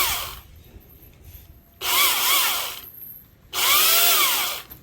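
Electric chainsaw motor winding down as the trigger is released, then revved twice in short bursts, each spinning up and dying away. The chain is run without cutting to spread bar oil onto it after long disuse.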